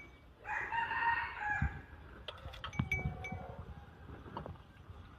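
One drawn-out animal call lasting about a second and a half, followed by a few light clinks.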